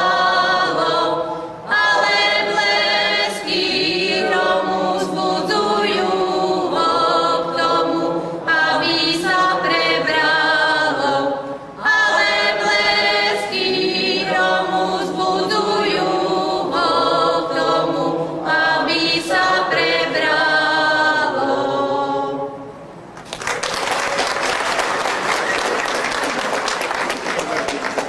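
Women's voices singing a folk song unaccompanied, in long phrases with short breath pauses. The song ends about 23 seconds in and applause follows.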